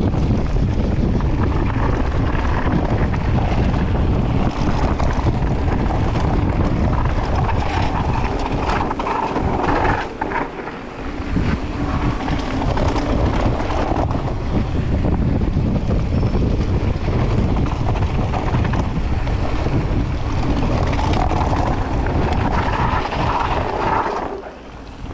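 Wind buffeting the microphone of a mountain bike rolling fast down a dirt trail, mixed with steady tyre roar and small knocks from the bike over the ground. It eases briefly about ten seconds in and again near the end.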